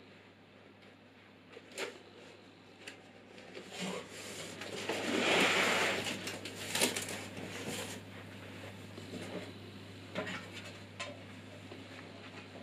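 Cardboard packaging being handled: the box flaps and inner cardboard rustle and scrape, with a longer, louder scraping slide about five seconds in and scattered light knocks before and after.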